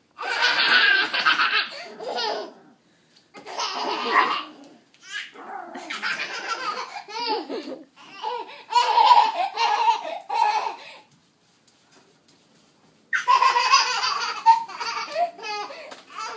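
A small child laughing in about five high-pitched bursts, with a quiet pause of a couple of seconds near the end.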